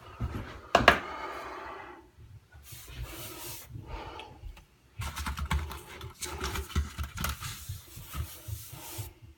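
Handling noises: a sharp knock just under a second in, then scattered small clicks, knocks and rustling, busiest over the second half.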